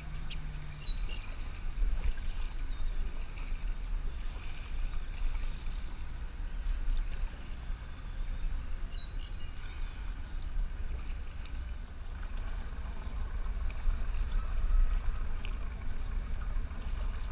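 Kayak paddling: the paddle blades dipping and water splashing and dripping, over a steady low rumble of wind on the microphone.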